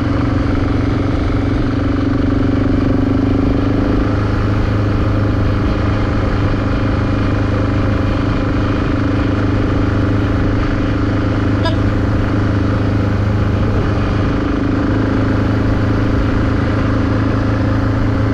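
BMW G650GS single-cylinder motorcycle engine running steadily at a low cruising speed of about 20 mph, ridden gently on a punctured rear tyre. The drone stays even throughout with no change in revs.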